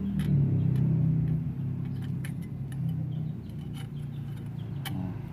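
An engine running steadily, louder in the first second or so, with scattered light metallic clinks.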